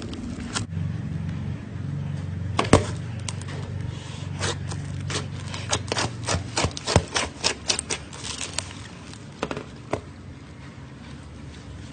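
Slime being handled and pressed, giving a run of sharp, irregular clicks and pops that come thickest in the middle of the stretch. A low steady hum runs underneath for the first half.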